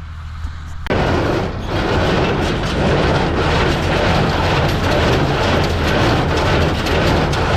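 Tractor engine idling, then about a second in a loud, steady mechanical clatter starts and runs on: an old New Holland square baler running behind the tractor.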